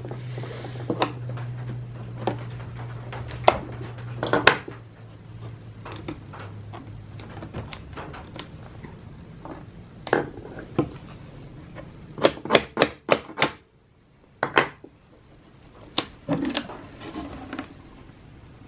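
A 1950s Olympia Deluxe manual typewriter being handled and its keys tried: scattered sharp metallic clacks and knocks, with a quick run of about six key strikes roughly twelve seconds in. A low steady hum runs underneath and stops about seven and a half seconds in.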